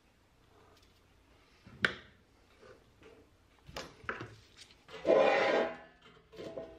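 A rusty pressed-steel toy truck body being handled and shifted on a workbench: a sharp click, a few light knocks, then a loud metal scrape lasting under a second about five seconds in, followed by small clicks.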